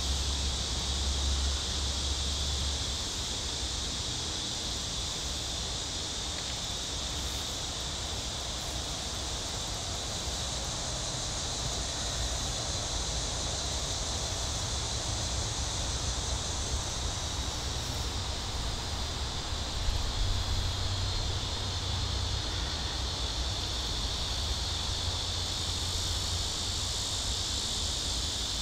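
Steady, dense chorus of summer insects buzzing without a break, with a low rumble underneath.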